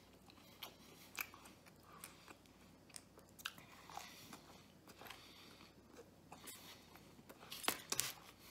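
Faint close-up chewing of a soft, doughy bread piece dipped in marinara, with scattered small clicks and smacks from the mouth. A bite comes about four seconds in.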